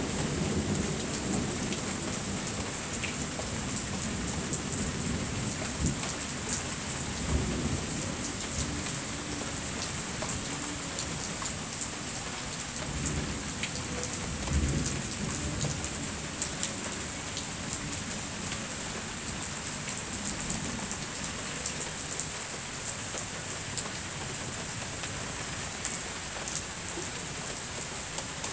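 Heavy rain falling steadily, with many single drops ticking close to the microphone. Thunder rumbles low underneath, strongest near the start and again around the middle, then dies away in the later part.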